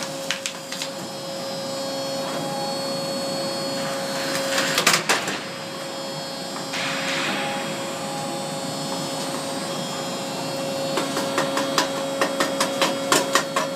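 Catalytic converter shearing machine running with a steady motor hum as a converter is fed through its rollers and the steel shell is sliced open. There is one sharp loud crack about five seconds in, and from about eleven seconds on a quick run of cracking and clattering as the shell splits and the ceramic substrate breaks up.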